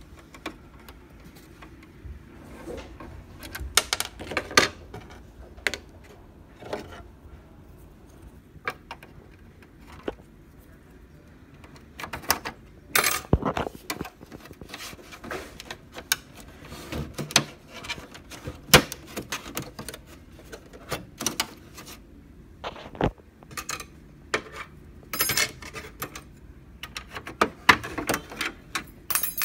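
Irregular clicks, knocks and light clatter of hands handling and taking apart a laser printer's plastic casing, with several louder clusters of rattling spread through.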